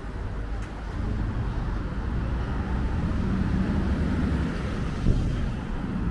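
Road traffic on a town street: cars driving past with a steady low rumble of engines and tyres, growing a little louder after the first second. A single sharp knock about five seconds in.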